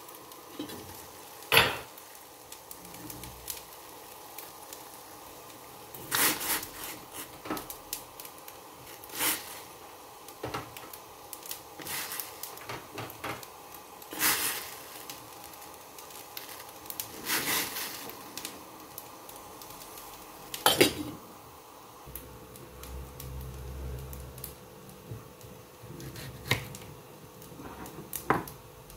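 Stainless steel saucepan and its lid clinking and clanking now and then over a steady faint hiss, with soft low thumps near the end.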